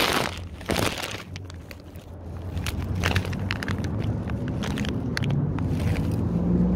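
Crackling and clicking handling noise as a phone is set down and adjusted in grass, then the low steady hum of a passing road vehicle's engine builds over the last few seconds.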